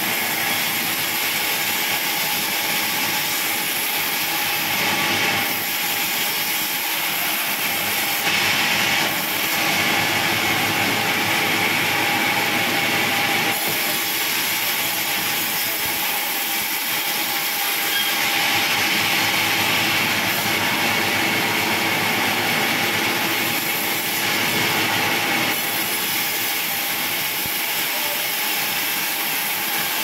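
Large band sawmill running and cutting timber: a loud, steady whine and hiss of the blade through wood, with the sharper cutting noise swelling and easing every few seconds as slabs are pushed through.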